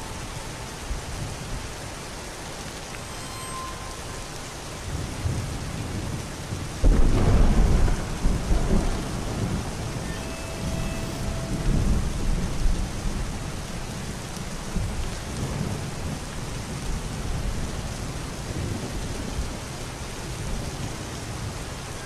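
Steady rain and wet-road noise heard from inside a moving car, with a clap of thunder about seven seconds in that rumbles on in rolling swells for several seconds.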